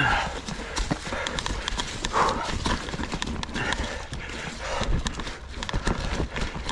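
Ibis Ripmo full-suspension mountain bike clattering over rocks: a rapid, uneven run of knocks from the tyres striking rock, with the chain and frame rattling.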